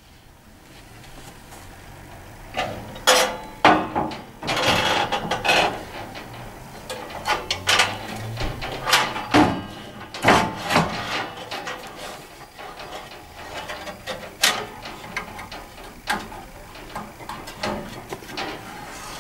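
Metal-framed glass front panel of a gas fire being handled and refitted into the firebox: irregular clacks and knocks with a brief scrape, most of them in the first half.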